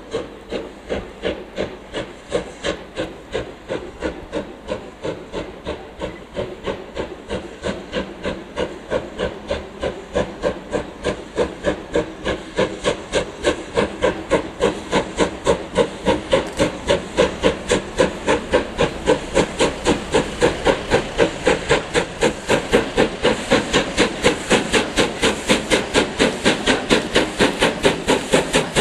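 USA S160 2-8-0 steam locomotive working a train, its chimney exhaust beating evenly about three to four times a second and growing louder as it approaches.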